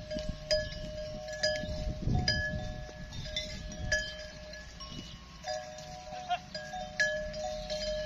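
Metal livestock bells clinking irregularly, each strike ringing briefly, with a low rustle about two seconds in.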